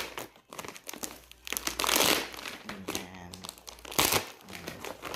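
Plastic courier mailer bag crinkling and rustling as it is handled and pulled open, loudest about two seconds in, with a short sharp crackle about four seconds in.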